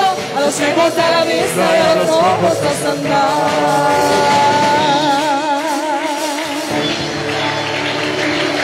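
Live church worship music: band accompaniment under a lead singer, who from about three seconds in holds one long, wavering note for about three and a half seconds.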